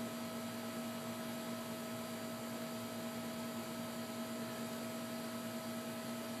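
Steady background hum of a few constant tones over an even hiss: room tone, with no distinct events.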